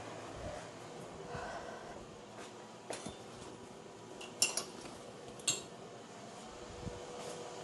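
Coat hangers clicking and clinking against a clothes rail as hung clothes are put up: a few sharp clicks, the loudest a quick double click about four and a half seconds in.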